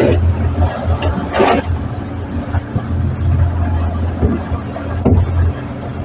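Boat engine running steadily with a low hum, with a few brief rushes of noise at the start, about a second and a half in, and again near the end.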